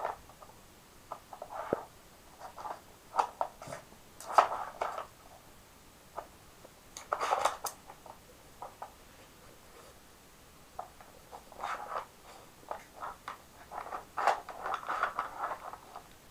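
A dog working a plastic treat-puzzle board with its nose: irregular short scrapes, clicks and knocks as the plastic covers slide and the pieces are nudged, in scattered clusters with pauses between.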